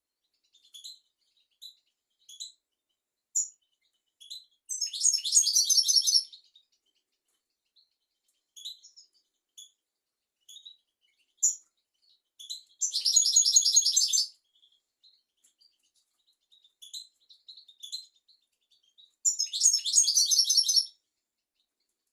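European goldfinch singing: scattered short, high chirps broken by three dense, rapid twittering phrases, each about a second and a half long and several seconds apart.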